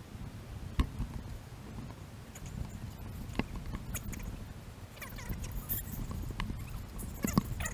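Footsteps on a sandy, rocky hiking trail, sped up so that the steps come quick and uneven as short knocks and scuffs, over a steady low rumble.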